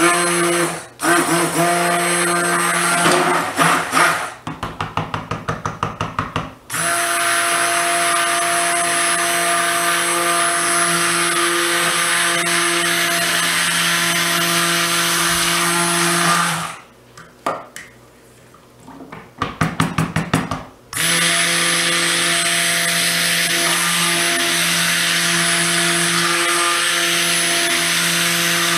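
Electric stick blender running in a bowl of soap oils, mixing clay and colloidal oats into them. It runs in long steady stretches, broken by quick on-off pulsing twice and a short pause a little past the middle.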